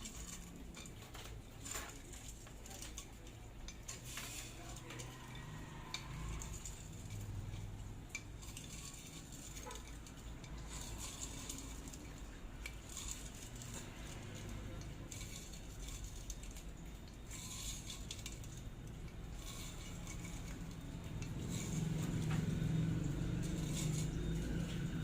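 Light metallic clinks and scrapes as a new coiled heating-element wire is rolled and fitted into a melting furnace's chamber. A steady low hum comes in near the end.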